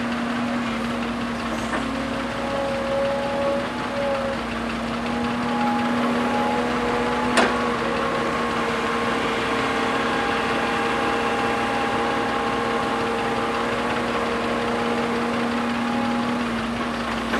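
Heavy-machinery diesel engine running steadily at a constant pitch, with one sharp knock about seven seconds in.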